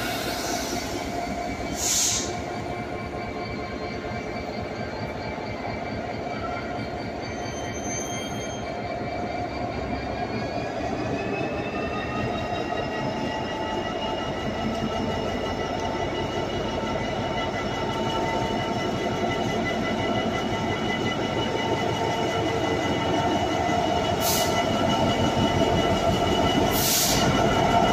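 GBRf Class 66 diesel locomotive's turbocharged two-stroke V12 engine working hard as it pulls away with a freight train, its pitch rising slowly as it gathers speed and growing louder as it passes close. A few brief high squeals cut through along the way.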